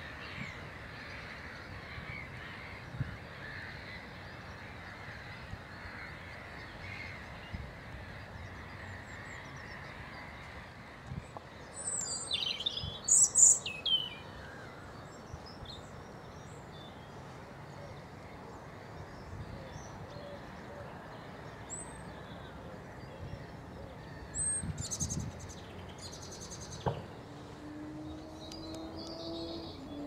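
Wild birds calling outdoors over a steady background hiss. Short, high, quick-gliding calls are loudest about twelve to fourteen seconds in, and come again around twenty-five seconds.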